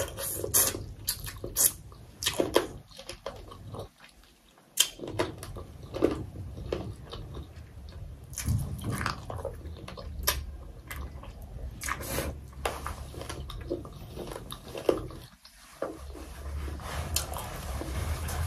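Close-miked mukbang eating sounds: a person chewing and biting into momos and thukpa, with irregular wet mouth clicks and smacks.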